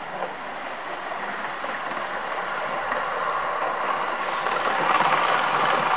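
Hornby Eurostar model train running on the layout's track, a steady rolling rumble that grows louder toward the end.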